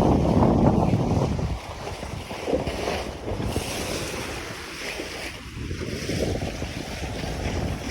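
Wind buffeting the microphone over the rush of sea water past a sailing yacht under way. The wind rumble eases off about a second and a half in, leaving the steady hiss of the water.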